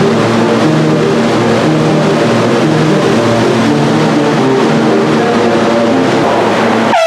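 Loud, steady running noise of a moving New York City subway train, with low humming tones that come and go. A handheld air horn blast cuts in right at the end.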